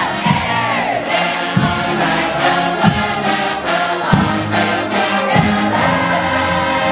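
University of Florida marching band playing: brass holding loud chords over bass drum hits that come about every second and a half, with a falling slide in the horns about half a second in.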